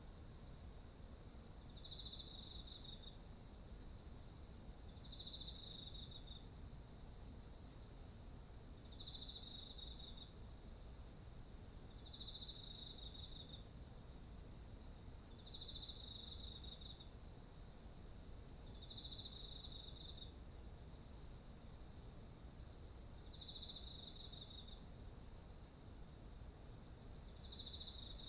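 Chorus of autumn singing insects: one high, unbroken trill, over it a lower pulsing trill in phrases a few seconds long with short breaks, and a still lower short phrase recurring about every three to four seconds.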